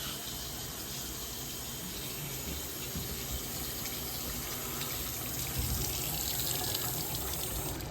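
Bathroom sink faucet running steadily into the basin, shut off near the end.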